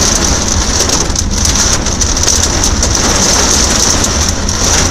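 Hail pelting a car's body and windows, a dense, steady clatter of countless small impacts heard from inside the car.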